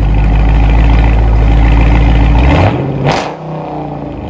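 Dodge Charger Scat Pack's 6.4-litre 392 HEMI V8 running loud through a dual exhaust with the mid mufflers deleted (3-inch pipe, X-pipe, rear mufflers kept), held at raised revs with a deep, steady rumble. About two and a half seconds in the revs drop back toward idle, with a sharp crack just after.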